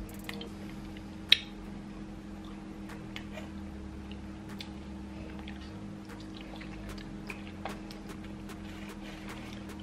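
Eating sounds: chewing and a fork picking through baked sea trout in an aluminium foil pouch, with scattered small clicks and one sharp click about a second in, over a steady low hum.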